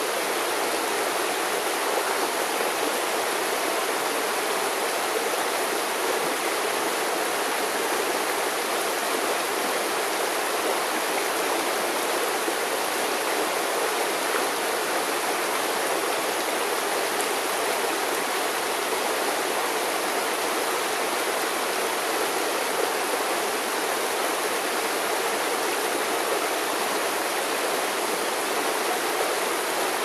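River water flowing, a steady, even rushing that does not change.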